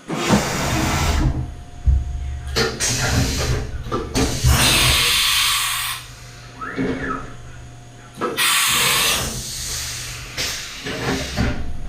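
CNC milling machine running a machining program on an engine timing case, with a steady hum under several long bursts of loud noise that start and stop every second or two.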